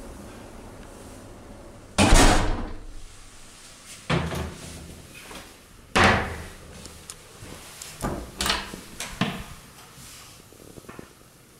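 Doors being shut and handled: a loud knock about two seconds in, more knocks at about four and six seconds, then a cluster of lighter clacks near the end. The first of these is the shoe cabinet's hinged doors closing.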